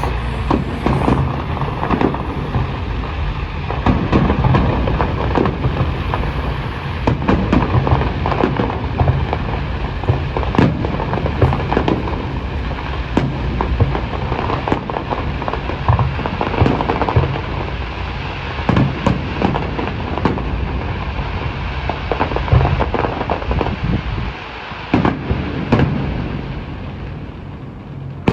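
Fireworks display: a continual barrage of bangs and crackling bursts with a deep rumble underneath, thinning out a little near the end.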